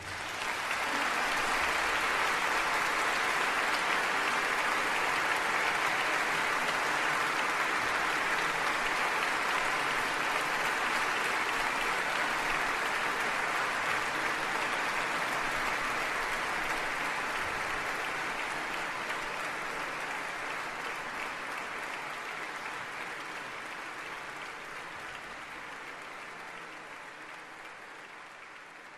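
Audience applause, an even clatter of clapping that holds steady and then slowly fades away over the last dozen seconds.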